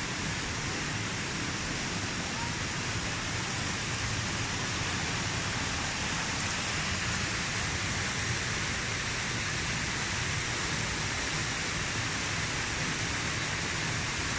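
Waterfall heard close up: a steady, unbroken rush of falling water.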